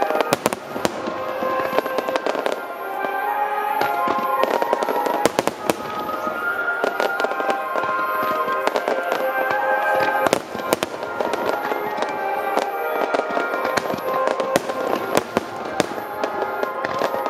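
Aerial firework shells bursting in a dense barrage, with many sharp bangs and crackling, over music with held melodic tones.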